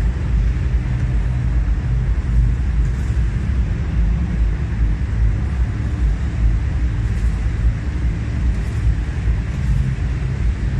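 Steady low rumble and hum of a large exhibition hall's ambience, with no distinct events.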